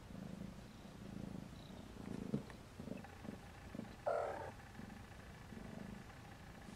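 Cat purring steadily in a rhythm of in- and out-breaths, with a sharp click a little after two seconds and a short, louder sound just after four seconds.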